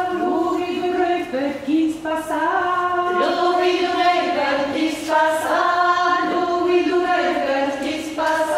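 A group of women singing a Gascon round-dance song unaccompanied, one melody line in held notes, phrase after phrase.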